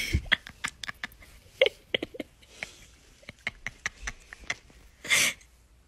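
Pet raccoon making two short, breathy huffs, one at the start and one about five seconds in, with a run of quick clicks between them.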